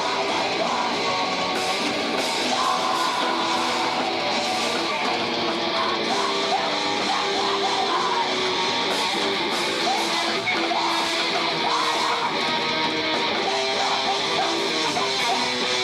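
Live rock band playing a loud, guitar-heavy song.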